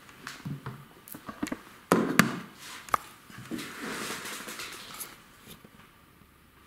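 Several taps and knocks with some rustling, the loudest a sharp pair close together about two seconds in.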